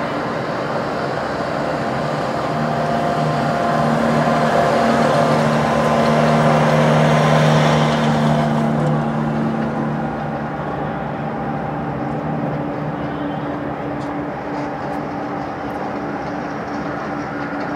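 Jet aircraft engines running at taxi idle: a steady hum with held whining tones. It swells to its loudest about seven seconds in, then eases off.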